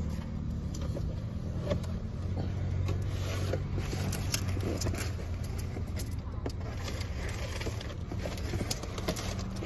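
Car engine idling steadily, heard from inside the cabin, with light clicks and rustles as a cardboard food carrier and a paper bag are handled.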